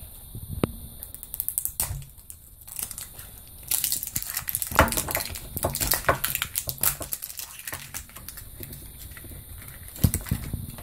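Plastic surprise-toy capsule being twisted and pried open by hand, with rapid clicking and crinkling of the plastic and its wrapper. The clicks and rustles are densest in the middle, with another burst near the end.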